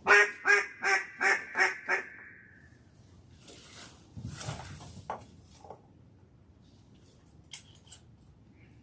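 Mallard duck call blown by a hunter: a run of six loud, quacking notes at about three a second, then a few faint, short calls near the end.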